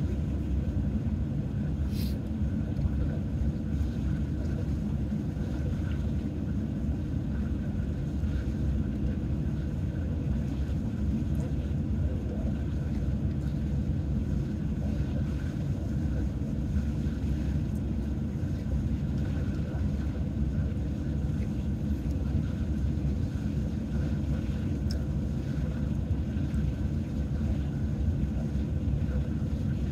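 Steady low rumble of an idling vehicle engine heard from inside the cab, with an occasional faint click.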